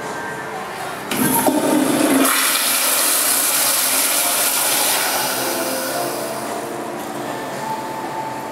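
American Standard Madera toilet flushed by its flushometer valve. The handle is pushed about a second in, followed by a loud rush of water that slowly eases off toward the end.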